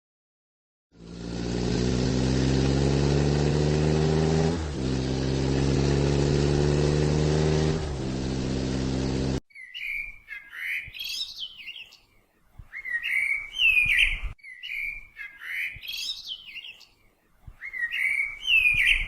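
Two stock sound effects in turn. First a steady engine-like hum with a strong low pitch that dips briefly twice. Then, about nine seconds in, a bird chirping in repeated short, quick phrases with pauses between them.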